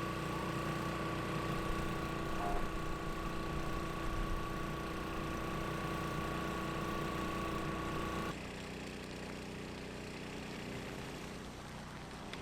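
A steady engine hum with a constant whine over it, changing at an edit about eight seconds in to a quieter, even rumble.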